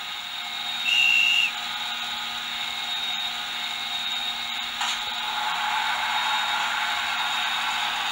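Sound decoder of an LS Models HO-scale CC 40101 model electric locomotive playing through its small speaker: a short high horn note about a second in, over steady blower and fan hiss that swells after a click near five seconds, as the locomotive gets ready to pull away.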